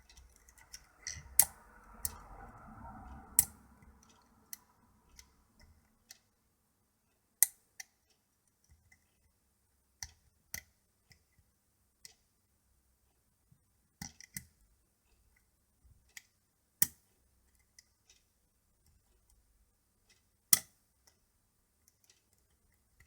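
Lock picks working the pins of a pin-tumbler rim cylinder during single-pin picking: sparse, irregular sharp metallic clicks, a few much louder than the rest, with faint rustling of handling in the first few seconds.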